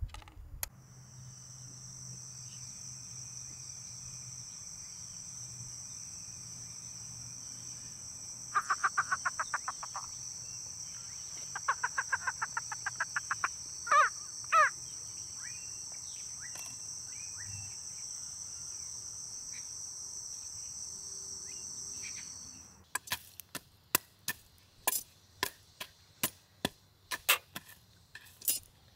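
Insects singing outdoors in a steady high-pitched drone, broken in the middle by two short runs of rapid ticking and two sharp knocks. Near the end the drone cuts off and a series of sharp clicks and knocks follows, about one or two a second.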